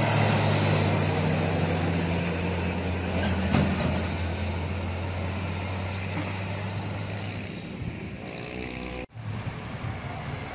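Heavy Isuzu box truck's diesel engine running at steady revs as it climbs past, fading as it pulls away up the hill. About nine seconds in the sound cuts off abruptly to lighter road traffic.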